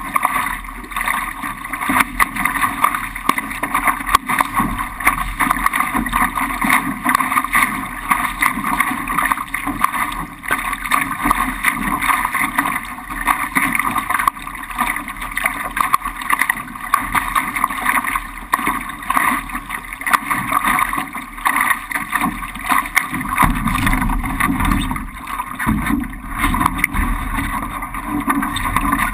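Laser sailing dinghy planing through choppy water: a steady rush of water and spray against the hull, with wind buffeting the microphone, heavier near the end.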